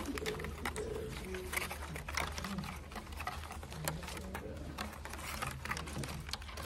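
Black ash basket splints clicking and rustling as they are bent and woven by hand: an irregular run of light clicks and scrapes over a steady low room hum.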